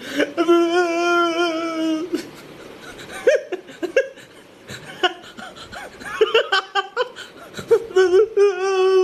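A man wailing in long, drawn-out cries, with broken sobbing and laugh-like sounds in between. A held wail fills about the first two seconds, and another starts near the end.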